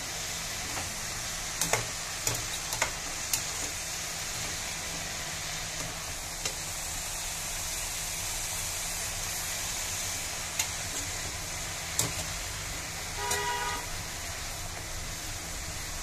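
Chopped green onions frying with a steady sizzle in an aluminium kadhai, with the clicks and scrapes of a metal slotted spoon stirring against the pan. A brief pitched honk sounds about 13 seconds in.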